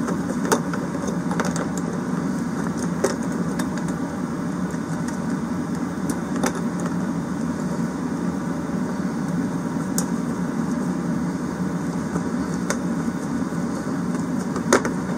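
A steady machine hum runs throughout, with scattered sharp clicks and taps of hand tools on the diesel heater's metal fittings as a fastener is worked from one side.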